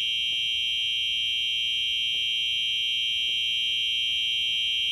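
Fire alarm sounding one steady, unbroken high-pitched tone.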